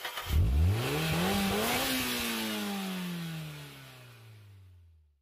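Engine revving: its pitch climbs steeply over about a second and a half, then winds down slowly and fades out.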